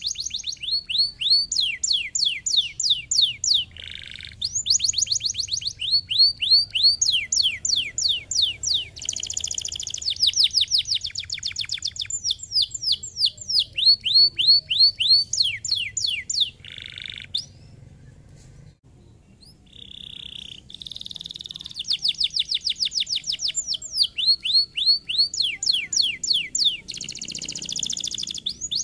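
Domestic canary singing: long fast trills of rapidly repeated, downward-sweeping notes that change from phrase to phrase, with a pause of about two seconds past the middle.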